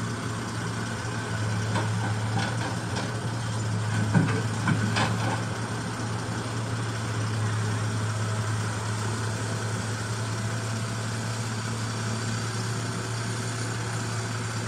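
Komatsu crawler excavator's diesel engine running steadily as the machine tracks over a lowboy trailer's deck. A few sharp knocks sound between about two and five seconds in, the loudest around four seconds.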